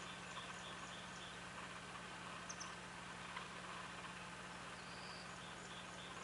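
Faint outdoor ambience: a small songbird sings a quick series of high, falling notes at the start and again near the end, over a steady low hum.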